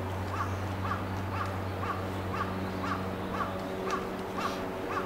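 A crow cawing over and over, about two caws a second, over a steady low hum.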